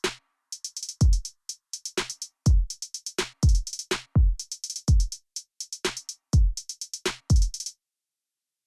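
Background music: an electronic drum-machine beat of deep kick drums that drop in pitch, with quick crisp high hits between them. The beat cuts off about a second before the end.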